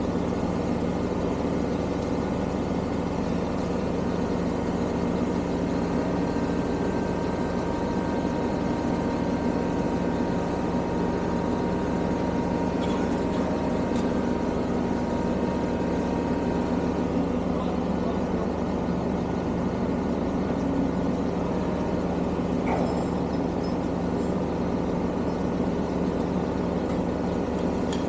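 Lorry's diesel engine running at a steady speed throughout, with no change in revs, as when it powers the hydraulics of a truck-mounted loader crane during an offload.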